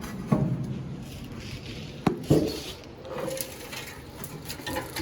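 A loose sheet-metal car fender being handled: three sharp knocks, two of them close together about two seconds in, with rubbing and scraping between.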